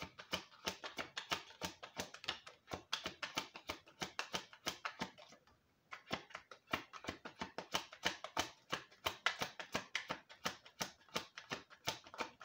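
A deck of oracle cards being shuffled by hand: a fast, continuous run of light card clicks and flicks, with a brief pause about five seconds in before the shuffling resumes.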